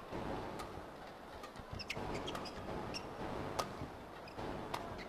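Badminton rally: sharp racket strikes on the shuttlecock a second or more apart, the sharpest about three and a half seconds in, with short high squeaks of players' shoes on the court over a low arena murmur.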